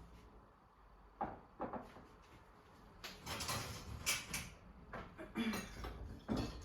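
Household handling sounds: a few short knocks and clatters, with a stretch of rustling in the middle.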